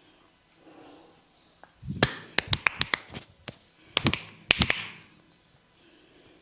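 A massaging barber's hands striking a head in quick percussive slaps and taps: a burst of about eight about two seconds in, then a shorter burst of five or six.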